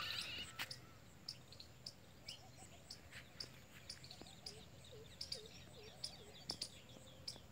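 Faint outdoor birdsong: several small birds chirping in short, high, repeated notes, with a run of five short, low, looping calls from another bird about halfway through.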